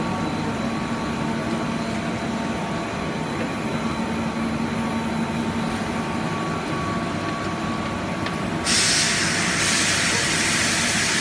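Sunflower oil filling machine running with a steady hum and a few constant whining tones. About three quarters of the way in, a louder steady hiss starts suddenly and keeps going.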